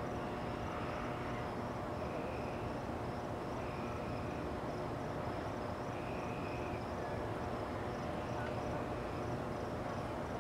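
Outdoor background: a steady low rumble with a faint, fast, even pulsing chirp high up and short trills repeating every second or two.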